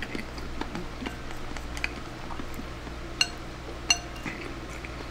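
Chopsticks clinking and scraping against a ceramic rice bowl while eating, with two sharper ringing clinks about three and four seconds in.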